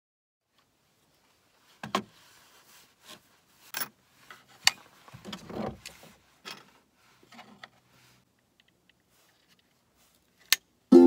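Scattered light clicks and knocks of jigsaw blades and their plastic case being handled on a plywood sheet, then one sharp click near the end as a blade is snapped into the clamp of a DeWalt XR cordless jigsaw.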